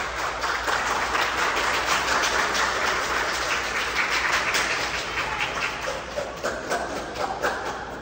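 Crowd of spectators clapping, with voices shouting in the mix, dying away near the end.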